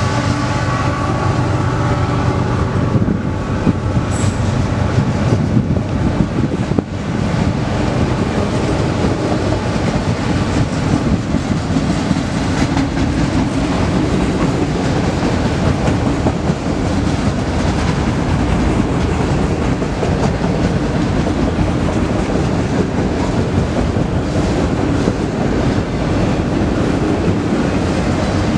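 Freight train of autorack cars rolling past: a steady, loud rumble of steel wheels on rail with clickety-clack over the rail joints. In the first few seconds the trailing diesel locomotive's engine note fades as it moves away.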